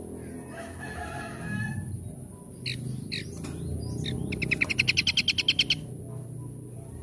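Small songbird calling: a few short warbled notes, then a loud, fast rattling trill of about a dozen notes in the second half.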